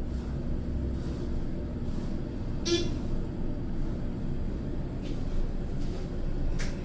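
Old passenger elevator travelling, with a steady low motor hum and rumble. A short sharp squeak or tone comes about three seconds in, and brief clicks come near the end.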